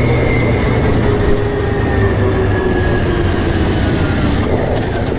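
Quad bike engine running while being ridden, its note falling slowly and steadily as the bike slows, over heavy wind and road noise.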